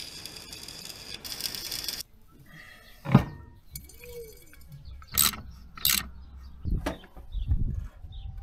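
Electric welding crackling for about two seconds and stopping abruptly, followed by a string of separate short metallic clicks and knocks from parts being handled.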